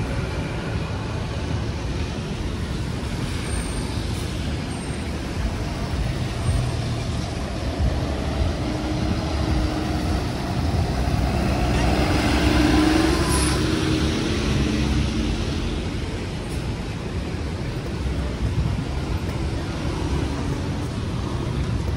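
City street traffic: a steady rumble of vehicles, with one passing louder about halfway through.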